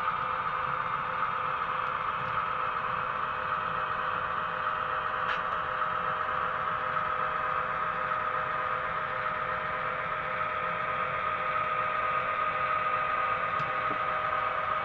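Sound-equipped model diesel locomotive's onboard speaker playing a steady diesel engine drone as the train pulls slowly away.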